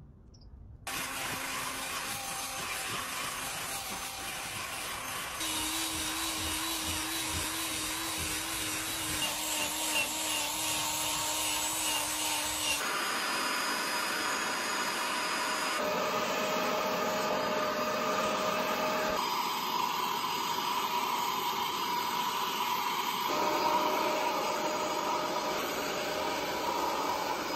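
Wet-extraction vacuum running steadily with a motor whine as its hand nozzle is drawn over fabric car-seat upholstery. The pitch and level change abruptly several times.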